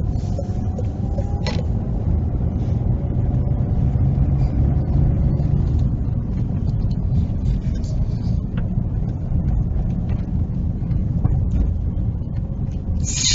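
Steady low rumble of a car's engine and tyres heard from inside the cabin as it drives slowly, with a faint whine over it and a single click about a second and a half in. A brief loud hissy burst comes near the end.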